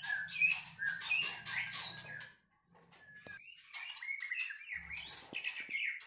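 White-rumped shama singing a fast, varied run of whistles and chirps. It breaks off for about a second midway, then starts again.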